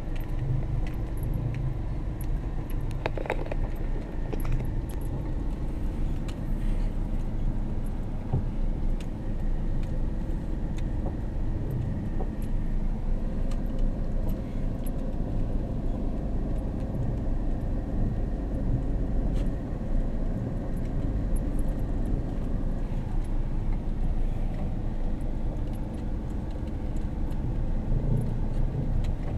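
Car driving, heard from inside the cabin: a steady engine and road rumble, with scattered light clicks and rattles.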